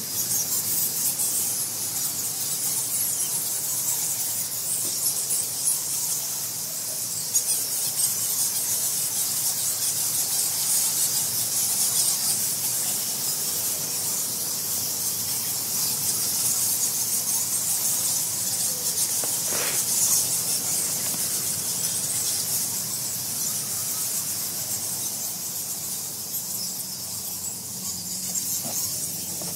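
A roosting colony of bats squeaking and chittering all at once, a continuous high-pitched mass of calls.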